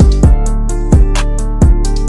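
Background music with a steady beat: deep, booming kick-drum hits over held chords.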